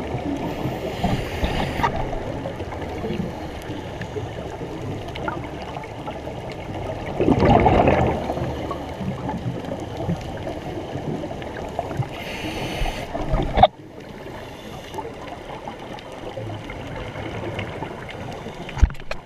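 Muffled underwater noise from a scuba dive, with the gurgle of a diver's exhaled bubbles. It swells loudest about seven seconds in and drops off suddenly a little after halfway.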